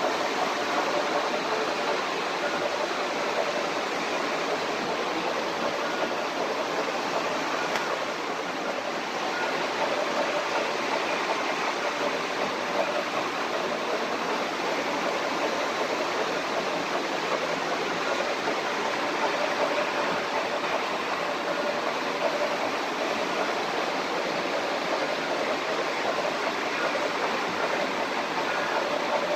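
O-gauge model trains running on three-rail track: a steady rushing rumble of wheels on the rails and motors running, unchanging throughout.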